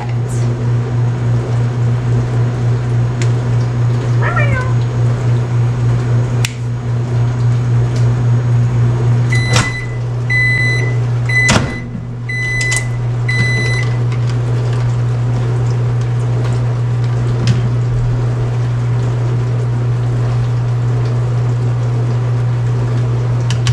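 Microwave oven running with a steady low hum. About nine seconds in it stops with a click and gives a run of short high beeps, with another click as the door is opened.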